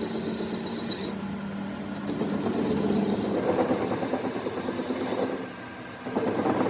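Metal being cut on a lathe, the cutting tool giving a steady high-pitched squeal over the running machine. The squeal stops about a second in, comes back a little higher in pitch near the middle, and cuts out briefly near the end.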